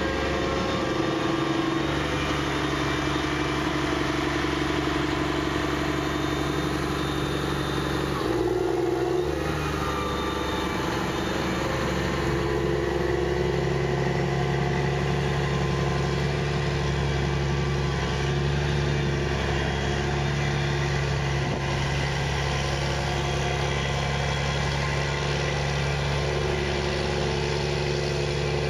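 Challenger MT765C tracked tractor's diesel engine running steadily as it pushes silage up a clamp, its note shifting briefly about eight seconds in.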